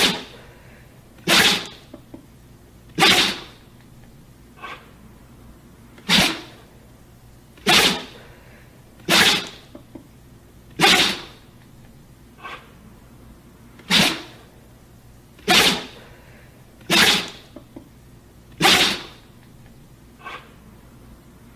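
A dog sneezing over and over: about a dozen sharp sneezes, roughly one every second and a half, with a few fainter short ones in between.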